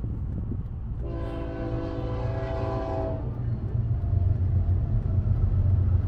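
Freight train locomotive air horn sounding one long blast of about two seconds, heard from inside a car over a steady low rumble.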